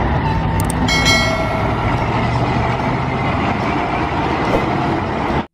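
Heavy KTA-25 truck crane driving along a road: steady engine and tyre noise, with a brief high whine about a second in. The sound cuts off suddenly near the end.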